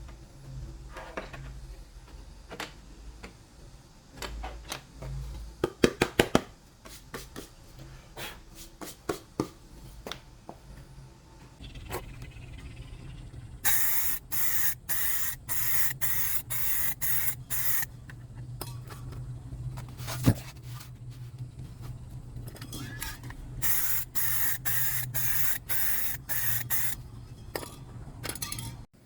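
A spray hissing in quick repeated spurts, about two a second, in two runs of several seconds, while the wood is prepared for painting. Clicks and knocks of handling come before the spraying.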